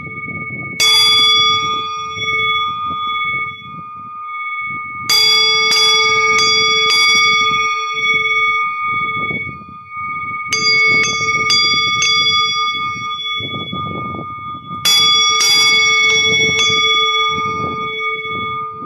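Metal bells struck in quick clusters of several hits, four times, each cluster leaving a long steady ringing of several tones, over an uneven low rumble.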